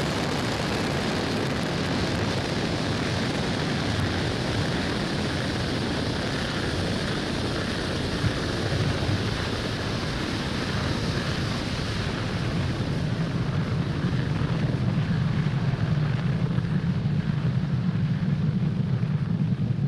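Falcon 9 first stage's nine Merlin 1D engines during ascent: a steady, loud, rushing rumble. About twelve seconds in, the hiss thins and a deeper low rumble grows louder.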